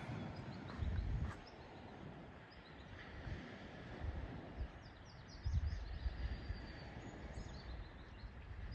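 Outdoor ambience: a low even background with intermittent low rumbles and a few faint, short high chirps about midway.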